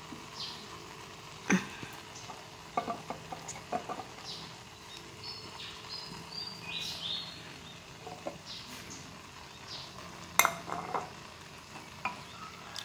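Shredded pickled bamboo shoots being dropped by hand into a hot electric pot of fish and curry ingredients, with soft rustling and a few irregular sharp taps and clicks, the loudest about ten seconds in.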